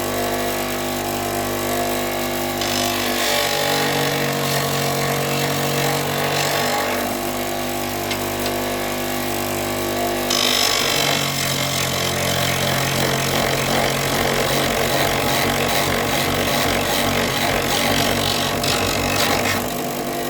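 A power tool's motor running steadily while it sands and grinds the wooden walking stick into a point. There are two stretches of harsher grinding as the wood is pressed to it: one from about three to seven seconds in, and a longer one from about ten seconds in until near the end.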